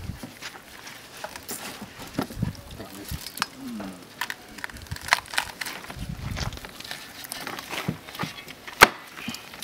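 Knives chopping and cutting through spit-roasted pork on cutting boards: scattered sharp knocks and clicks, the sharpest near the end, with faint voices behind.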